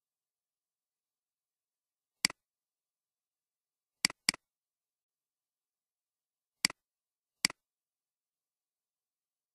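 Computer mouse button clicking five times against dead silence: a single click about two seconds in, a quick double-click near the middle, then two more single clicks under a second apart.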